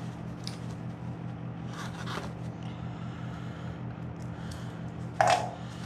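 Packing material being pulled off and unwrapped: short rustling and scraping strokes, with a louder crinkle about five seconds in.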